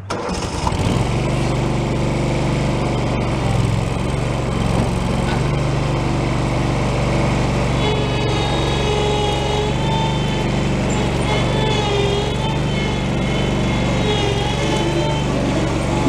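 Terramite T5C backhoe's engine starting about half a second in, then running steadily. From about 8 seconds a higher, wavering whine rides over it.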